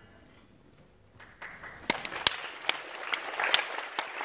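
Audience applause that breaks out about a second and a half in and builds, with sharp individual claps standing out.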